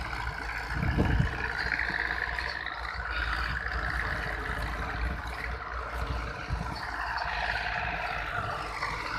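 Diesel tractor engine running steadily under load while pulling a tined cultivator through the soil, with a low, even rumble.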